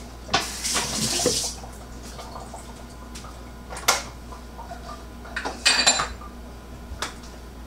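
Kitchenware being handled: utensils and dishes clattering. There is a rush of noise about half a second in lasting about a second, a sharp knock about four seconds in, and a ringing clink near six seconds.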